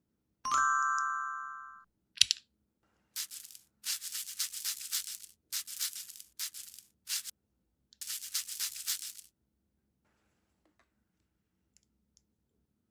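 A single bell-like ding that rings and fades over about a second and a half, a sharp click, then several bursts of scratchy, hissing noise such as spraying or handling plastic, stopping about two-thirds of the way through.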